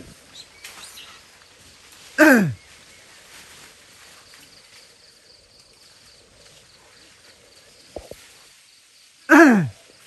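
Two loud, short shouts, each dropping sharply in pitch, about two seconds in and near the end: a person yelling to drive monkeys off the crops.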